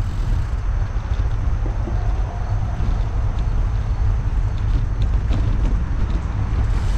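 Wind buffeting the microphone of a camera on a moving bicycle, a heavy low rumble that rises and falls, over road traffic noise.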